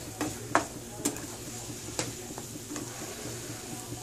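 Scrambled eggs and diced sausage sizzling in a frying pan while a spatula stirs and scrapes them, with irregular light knocks of the spatula against the pan.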